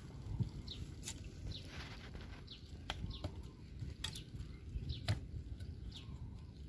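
A bird calling over and over in short falling chirps, roughly once a second, over a low steady rumble, with a few sharp clicks.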